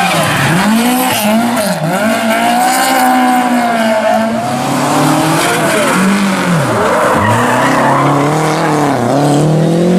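Rally car engine revving hard, its pitch climbing and dropping several times with sharp dips as the driver lifts off and changes gear, over the screech of skidding tyres.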